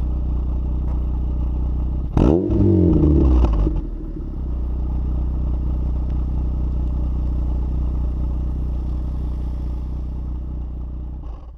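Lotus Elise S1 111S's Rover K-series 1.8 VVC four-cylinder engine idling through a Bell & Colvill exhaust with a decat pipe. About two seconds in, it gives one sharp blip of the throttle whose pitch rises and falls over a second and a half, then settles back to a steady idle. The sound cuts off just before the end.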